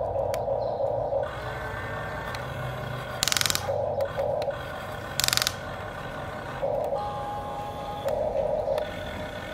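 Huina radio-controlled toy excavator's small electric gear motors whirring in short spells as the arm and bucket move, with two brief harsh rasps about three and five seconds in.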